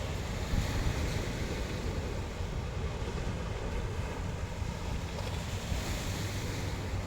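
Sea waves washing onto the shore, the wash swelling about a second in and again near the end, with wind buffeting the microphone in a steady low rumble.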